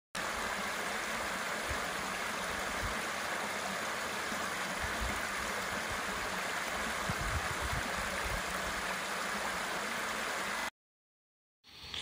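Small creek water trickling and splashing over rock ledges in little cascades: a steady rushing of water that stops abruptly near the end.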